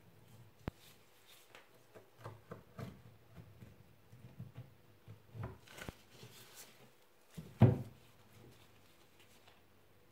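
A boning knife and gloved hands working a raw roe deer saddle on a wooden cutting board: a sharp click near the start, then a run of soft scrapes and knocks as the meat is cut from the bone. About three quarters through comes a loud thump as the saddle is turned over onto the board.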